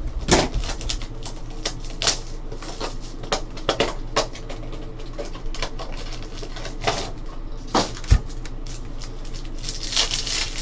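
Hands opening a trading-card box and handling its packs: irregular clicks, taps and rustles of cardboard and wrapper, with one sharper knock about eight seconds in.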